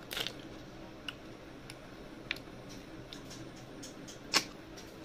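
Close-up eating sounds of river snails and rice eaten by hand: scattered wet mouth clicks and smacks, the loudest about four seconds in, over a faint steady hum.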